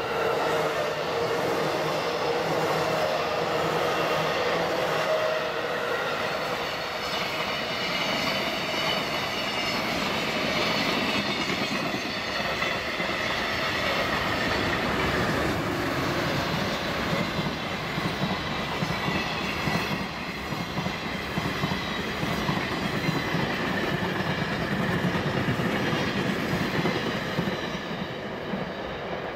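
A long container freight train passing at speed: continuous rumble and clatter of its wagon wheels on the rails, with steady ringing tones over it. It eases slightly near the end.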